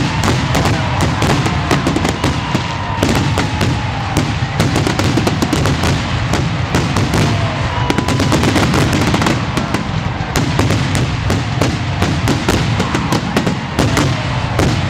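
Fireworks finale: a dense, unbroken barrage of shell bursts and crackling, many reports a second.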